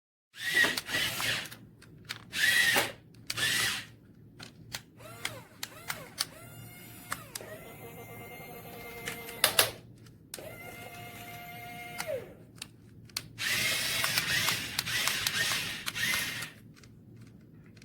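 Small electric motors and plastic gearboxes of a remote-control toy excavator whirring in short runs. The whine rises as a motor spins up and falls as it stops, with a longer run near the end.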